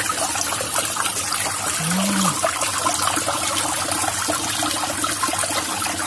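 Small waterfall pouring and splashing steadily into a shallow stone pool.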